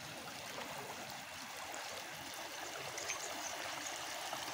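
Steady swishing and sloshing of floodwater as someone wades through it, pushing a small wave ahead, growing slightly louder towards the end.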